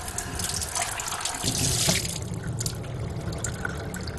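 Water running, a steady splashing hiss with scattered small clicks, stronger in the first two seconds.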